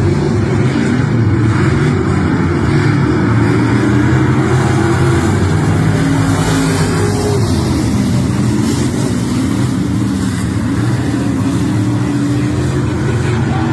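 Race car engine running at a fairly steady pitch, with small rises and dips.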